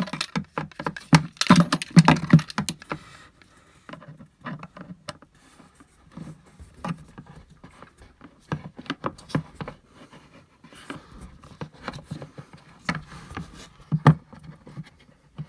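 Irregular small clicks, taps and rattles of plastic parts being handled and pushed together as a new RV toilet flush valve is fitted into place, busiest in the first few seconds.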